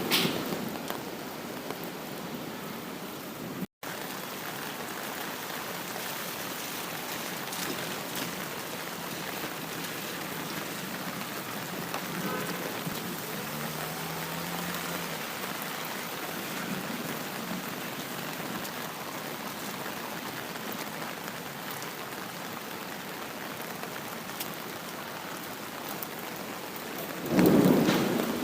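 Steady rain falling, with a loud roll of thunder near the end. The sound cuts out for a split second about four seconds in.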